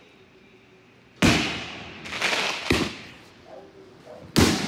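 Fireworks going off: a sharp bang about a second in, a cluster of several cracks around two to three seconds in, and another loud bang near the end, each one trailing off in an echo.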